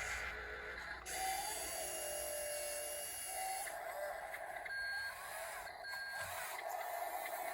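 Small electric motors and gearing of radio-controlled construction models whining at shifting pitches, with two short high beeps about a second apart midway.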